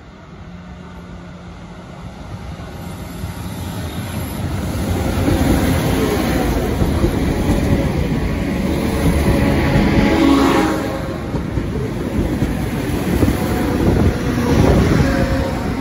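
Irish Rail InterCity diesel train approaching and passing close by. Its rumble grows over the first five seconds and stays loud as the carriages run past, easing briefly partway through.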